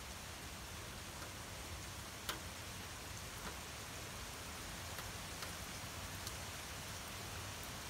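Gentle, steady rain falling: an even hiss with scattered drip ticks, one louder tick a little over two seconds in.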